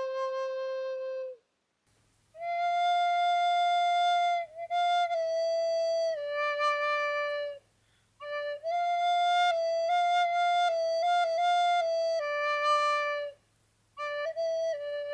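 Music: a solo flute-like wind melody in held and stepping notes, phrased with short pauses.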